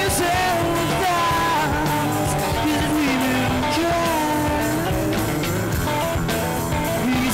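Live rock band playing: a man singing long held notes over electric guitar and a drum kit.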